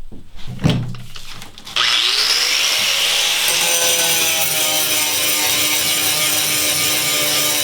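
A few handling knocks, then about two seconds in a power cutting tool, an angle grinder, starts, its pitch rising briefly as it spins up, and runs steadily with a hissing cut into the rusted steel floor.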